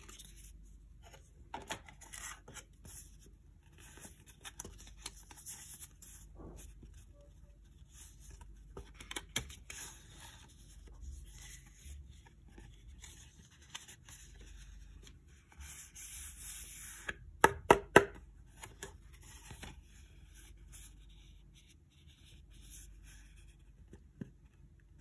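Paper and card being handled close up: printed cards and an envelope rubbing, sliding and rustling against each other, with small clicks throughout. Three sharp taps in quick succession about two-thirds of the way in are the loudest sounds.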